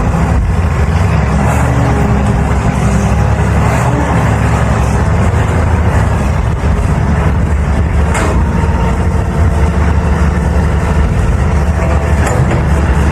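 Diesel engine of a CAT 320 hydraulic excavator running steadily while it digs. Two sharp knocks come about 8 and 12 seconds in.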